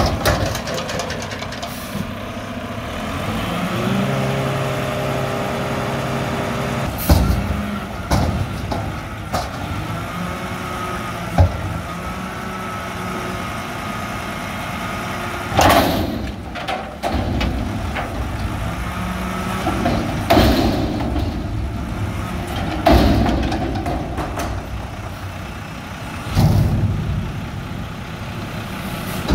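Mack garbage truck with a McNeilus front-loader body: its diesel engine runs and revs up and down, with sharp knocks a few times and several short loud bursts of noise.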